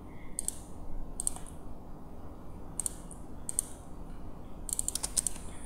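Scattered clicks of a computer mouse and keyboard keys, mostly single clicks with a quick run of several about five seconds in.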